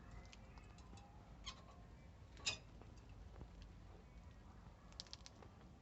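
Near silence with a few faint, short metallic clicks and ticks from steel spoke wire being handled against the brake pads and caliper.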